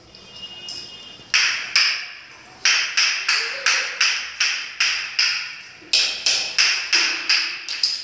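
A steady run of sharp slaps, about three a second, echoing in a bare tiled room, with two short breaks.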